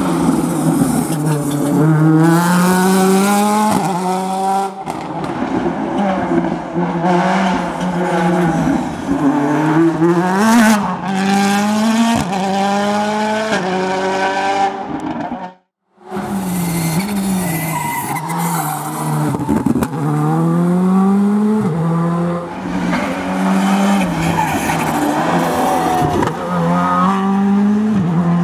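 Rally cars at full speed on a stage. The engine pitch climbs and drops again and again as the drivers go through the gears and lift for the corners. There is a short silent break about halfway.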